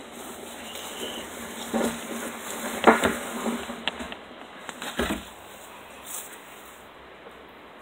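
Handling noise from the camera being set down and adjusted on a hard surface: a handful of knocks and scrapes, the loudest about three seconds in, with rubbing between them.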